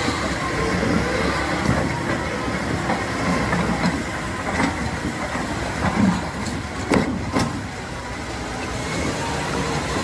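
John Deere tractor engine running as it tows a loaded flatbed trailer through deep flood water, with the water rushing and splashing around the wheels. A couple of sharp knocks come about seven seconds in.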